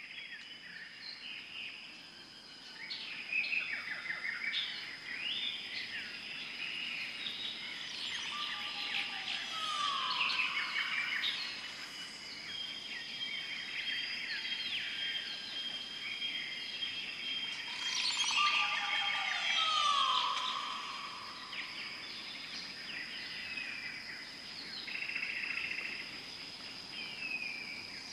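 Amazon rainforest ambience: many birds calling and whistling over a steady high-pitched insect drone. A long falling whistle sounds twice, about ten and about twenty seconds in.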